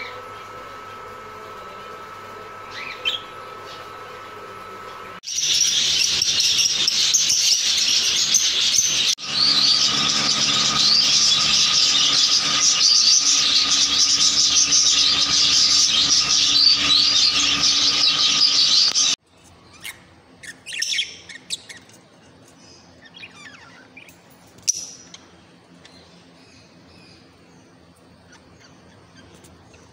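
Budgerigars chattering and warbling, a dense stream of high chirps that starts suddenly about five seconds in and stops abruptly about fourteen seconds later. Before it there is only a faint steady hum with a single short chirp, and after it just a few scattered short chirps.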